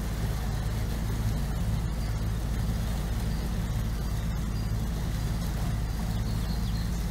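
Kent 28 Launch motorboat's engine running steadily under way, heard from aboard as an even low drone.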